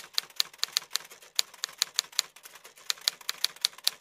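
Typewriter key strikes, a rapid, even run of sharp clacks about five a second with a brief lull midway, the sound effect for text typed out letter by letter.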